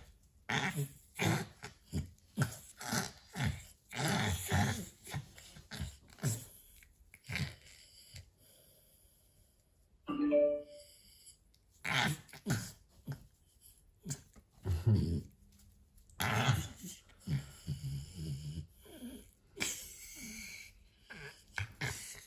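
French bulldog breathing noisily with grunts, in many short, irregular bursts while it lies on its back having its paws massaged. A brief higher note comes about ten seconds in.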